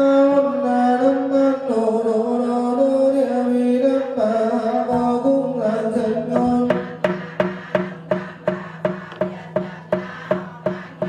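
Vietnamese Buddhist sutra chanting: the voices hold long sung notes, then about six seconds in a wooden fish (mõ) starts a steady beat of roughly two and a half strokes a second under the chant.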